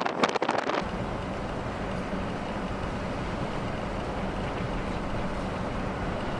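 Wind buffeting the microphone for under a second, then a sudden change to a vehicle's engine running with a steady low hum.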